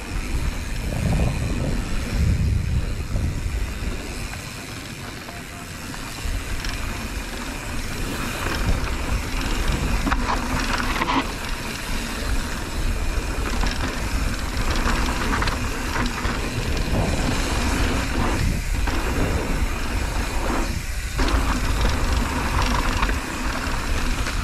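Mountain bike riding down a dry dirt trail: tyres rolling over dirt and the bike rattling over the bumps, heard through the camera microphone with a steady low rumble.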